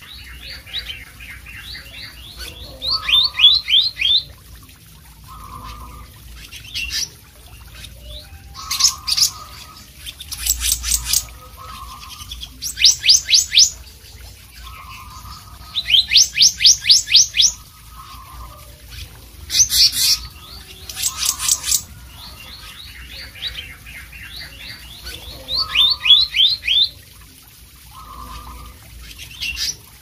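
Male black-naped monarch in full song: repeated short runs of rapid, sharp, high whistled notes, each run lasting about a second, coming every couple of seconds.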